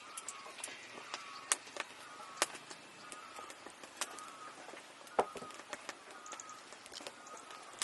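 Scattered sharp clicks and knocks from handling work, with short bird chirps repeating about once a second in the background.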